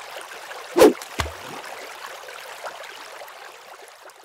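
Water sound effect for an animated logo intro: a steady rushing-water hiss, with a loud sharp hit just before a second in and a smaller, lower thud just after it, the hiss fading near the end.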